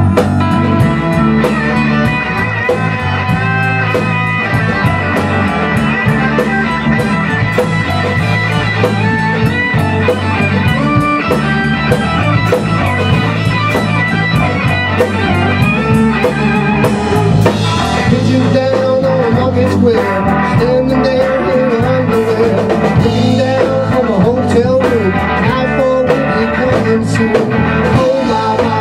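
Rock band playing live: electric guitar, bass guitar and a Tama drum kit, with steady drum hits throughout; in the second half a wavering, bending line rises above the band.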